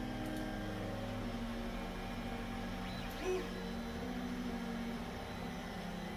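Creality CR-10S 3D printer's stepper motors whirring as it prints, their tone shifting in pitch every second or so as the head changes moves. A brief louder, higher whine comes a little over three seconds in.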